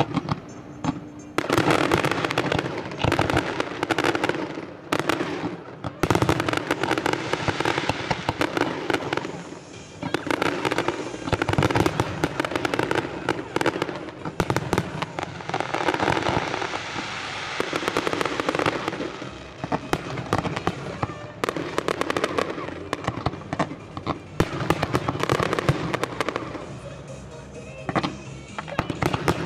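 Fireworks display: shells bursting one after another with crackling, the barrage swelling and easing in waves.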